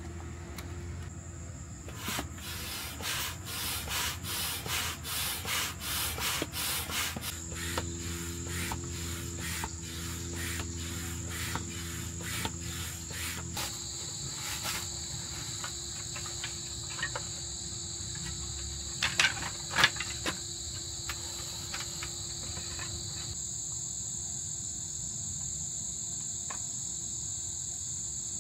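Insects trilling in steady, unbroken high tones, with a rhythmic rubbing or scraping of about two strokes a second and a low hum through the first half, and a few sharp clicks near the middle.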